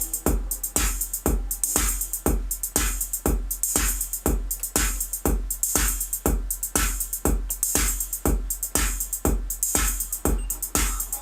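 Repetitive electronic loop. A drum machine beat plays a steady kick about twice a second under dense hi-hats, with a faint Korg Volca Keys analog synth line on a factory preset.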